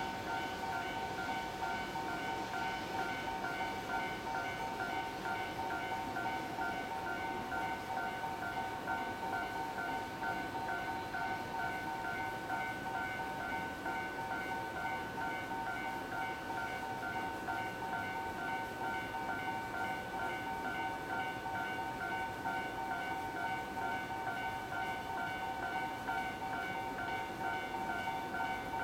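A railway electronic warning tone pulses on and off at a fast, even rate without a break. Beneath it is the low, steady running sound of a Shinano Railway 115 series electric train slowly approaching to arrive.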